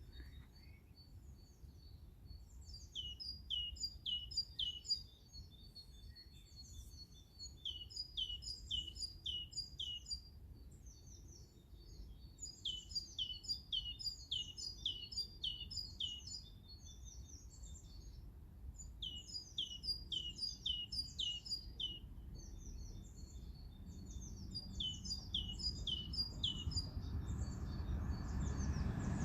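A songbird singing short phrases of quick, repeated, falling notes, one phrase about every five seconds. Under the song a low rumble grows louder near the end.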